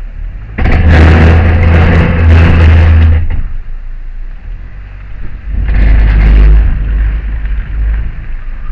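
Loud grinding from the right-side wheel brakes of a Honda Fit as it pulls forward after reversing, in two spells: one of about three seconds, then a shorter one a couple of seconds later. The car drags as if the brakes were on, which the owner takes for the right side locking up.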